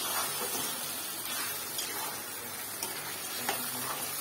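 Spice paste frying in a kadai over a high flame, with a steady sizzle, stirred with a spatula that scrapes faintly a few times. This is the masala being fried down (koshano) to cook out its raw taste.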